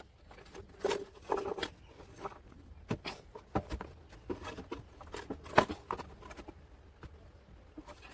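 Hands working clay for a miniature house, giving a series of irregular light taps and clicks.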